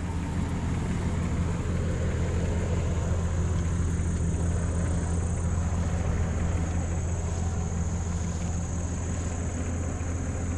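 An engine idling steadily, a low even drone with no change in speed.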